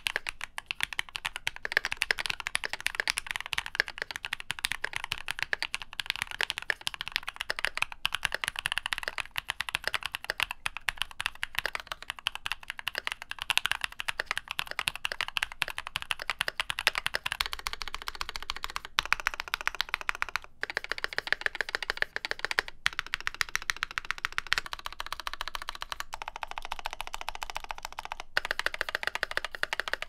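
Steady typing on a Keychron Q2 aluminum 65% mechanical keyboard with PBT keycaps, first on lubed and filmed Gateron Ink Black v2 linear switches, later on a prototype tactile switch. The taped PCB with polyfill and PE foam inside gives a lower-pitched, softer, thocky tone.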